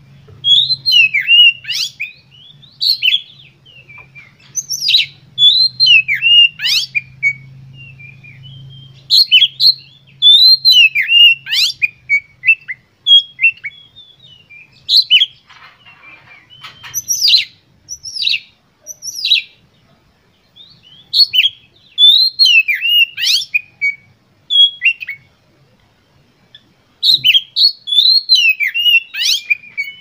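Oriental magpie-robin (kacer) in full song: bursts of loud whistles and sharp down-slurred notes, each a second or two long, with short pauses between.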